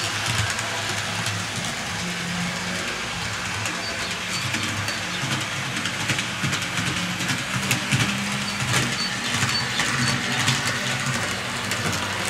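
Two MTB TT-scale model railcars of ČD class 850 running round layout track. Their electric motors hum steadily, with scattered clicks from the wheels over rail joints and points.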